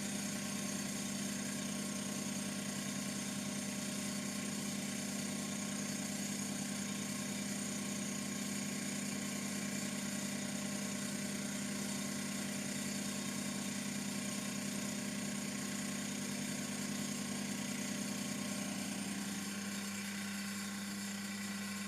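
TAIG milling machine running steadily, a constant motor hum with a high whine over it.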